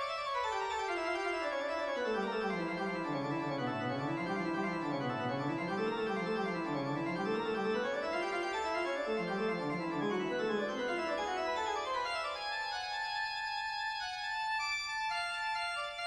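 Background keyboard music, organ-like, with fast runs of notes sweeping down into the bass and climbing back up.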